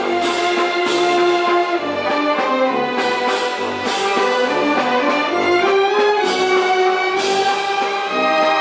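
Symphony orchestra playing live, with brass carrying the melody over strings and a pulsing bass line.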